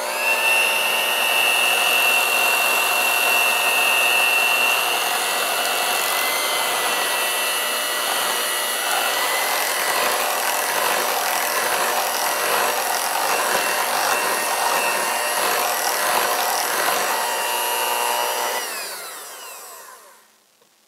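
Electric hand mixer running steadily on a turned-down speed, its beaters working eggs into a thick cream cheese batter. Near the end it is switched off and the motor winds down with a falling whine.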